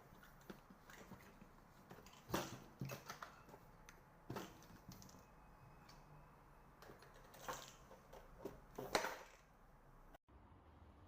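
Scattered hard clicks and knocks, a few short clusters of them, as the parts of a multi-tier kitchen storage rack are handled. The sound cuts off abruptly near the end.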